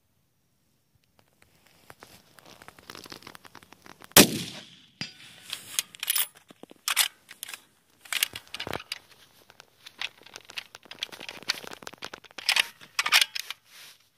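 A single shot from a .308 Winchester bolt-action rifle about four seconds in: one sharp crack with a short ringing tail. It is followed by a string of softer metallic clicks and rattles as the rifle is handled and its bolt is cycled.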